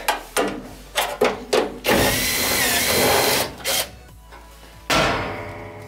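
Cordless drill turning a hex nut-driver bit on a flexible extension, backing out a blower-assembly screw. A few clicks, then the drill runs for about a second and a half with a whine that dips briefly, a short burst, and a second run near the end as the screw comes free.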